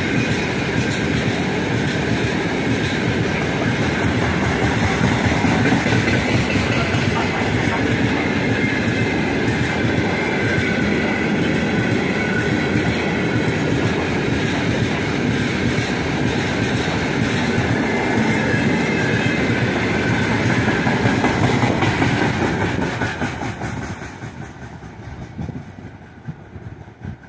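Freight wagons of a long, heavy freight train rolling past close by: loud, steady wheel-on-rail noise. About 23 seconds in, the last wagon goes by and the sound falls away quickly as the train moves off.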